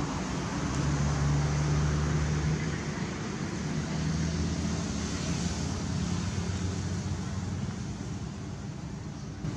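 A motor vehicle's engine running, a low steady hum under a wash of traffic-like noise, a little louder in the first few seconds.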